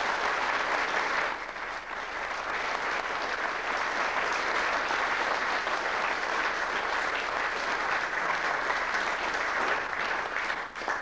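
Congregation applauding: dense, steady clapping that eases briefly about a second in, then picks up again and dies away near the end.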